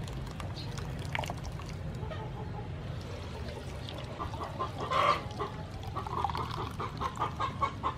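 Coconut milk poured from a steel bowl through a plastic strainer into a pot, after grated coconut is squeezed by hand in water. A hen clucks in short repeated notes over the second half.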